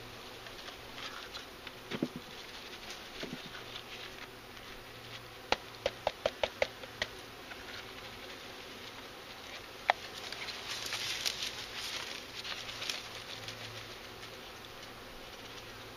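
Honeybees buzzing around an open hive and bee package, with a quick run of about six sharp taps about halfway through and a single louder knock a few seconds later, followed by a brief rustle.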